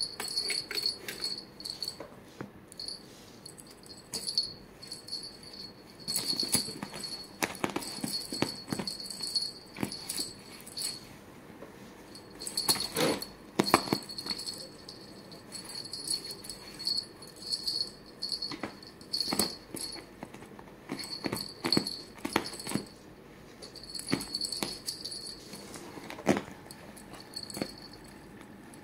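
Small bell on a cat wand toy jingling in irregular bursts as a calico kitten bats and pounces at it, with scuffing and a few sharp knocks.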